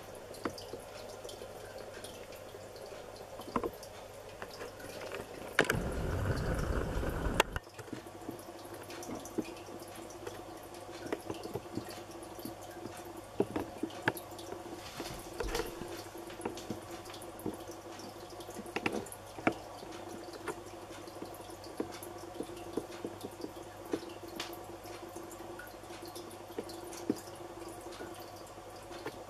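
Aquarium water dripping and trickling with irregular small splashes over a steady low hum from the tank's filter or pump. About six seconds in, a low rumble lasts for nearly two seconds.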